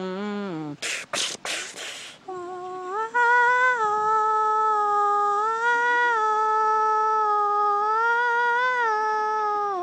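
A voice humming long held notes, broken about a second in by a few short hissing bursts; the hum resumes and holds one steady note that rises slightly about three seconds in and wavers gently after that.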